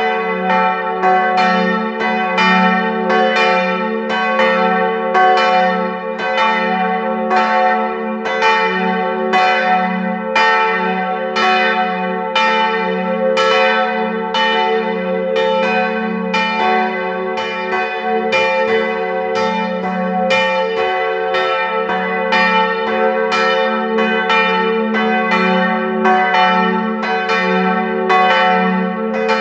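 Several church bells ringing together in a peal, strikes overlapping at roughly two a second over a steady ringing hum.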